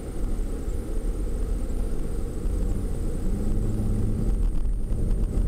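Low rumble of a van driving, heard from inside the cabin, with the engine note rising briefly a little past the middle as it picks up speed.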